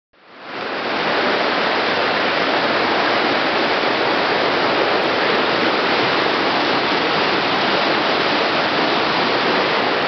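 River rapids rushing: a steady, loud whitewater rush that fades in over the first second.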